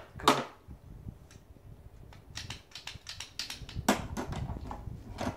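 An irregular run of small, sharp clicks: a louder one just after the start, a few scattered ones, then a denser patter over the last three seconds with another louder click near the end.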